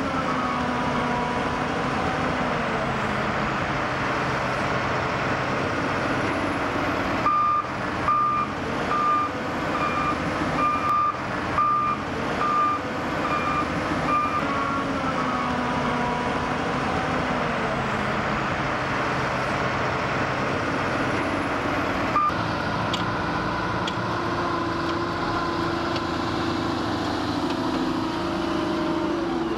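Diesel engines of dump trucks and wheel loaders running steadily while moving earth. A reversing alarm beeps about once every three-quarters of a second for around seven seconds, starting about a quarter of the way in.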